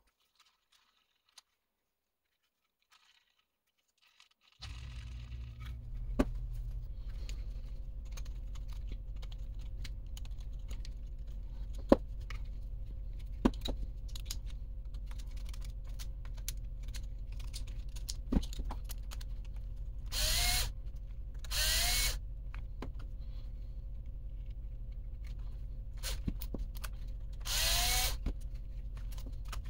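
Cordless power screwdriver running in three short bursts of about a second each, its motor whine rising as it spins up, working the screws of an RC truck's transmission case. A few sharp clicks of small parts and tools set on the bench come before, over a steady low hum.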